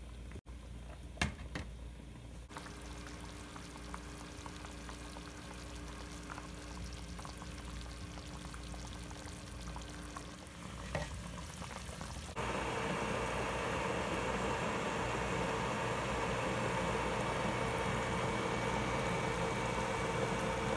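Meatballs frying in a pan of butter, bacon grease and meat juices: a steady bubbling sizzle with small crackles as the moisture cooks off. The sizzle gets abruptly louder a little past halfway.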